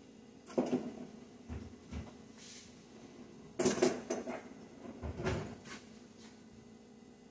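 Kitchen handling noise: a few knocks and clatters of utensils and containers, the loudest burst about three and a half seconds in, over a steady low hum.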